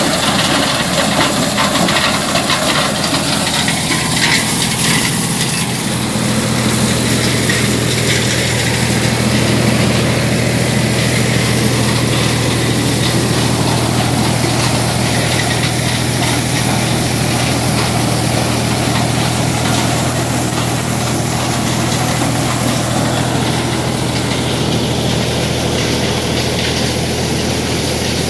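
Tractor-powered corn sheller running steadily under a tractor engine's constant hum, shelling ears of corn as they are fed in.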